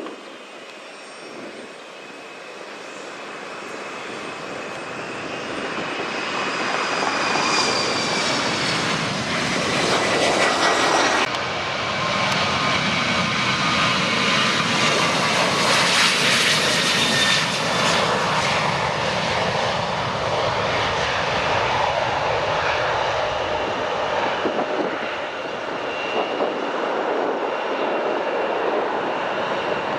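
Airliner engines growing louder over the first several seconds and then staying loud, with high whining tones that slowly fall in pitch over a broad rushing noise; the sound shifts suddenly about eleven seconds in.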